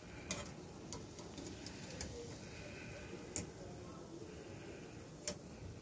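Quiet room noise broken by a handful of faint, sharp clicks at uneven intervals.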